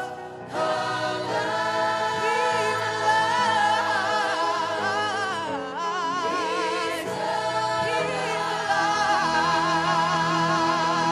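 Worship music: a gospel-style song with several voices holding long notes with a wide vibrato over sustained chords, after a brief break right at the start.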